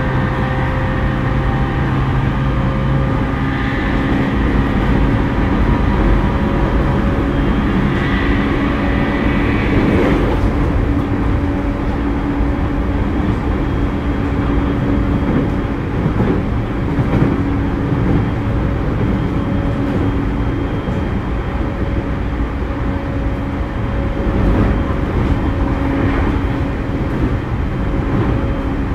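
Onboard running sound of a JR East E231-series 0 commuter train, heard in motor car MoHa E231-138: a loud rumble of wheels on rail and the car body, with steady humming tones from the traction motors.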